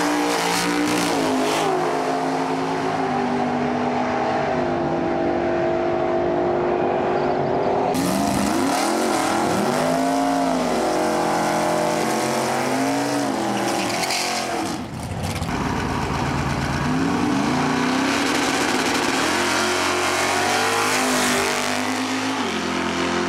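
Drag race car engines at the starting line, idling and being revved up and down over and over. The sound changes abruptly a couple of times as it switches from one car to another.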